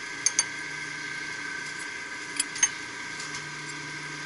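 Steady hum of running plant-room machinery, with a few light, sharp metallic clicks: two near the start and two about halfway through.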